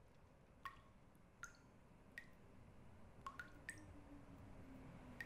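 Faint, slow water dripping: about six single drops, irregularly spaced, each landing with a short small plink.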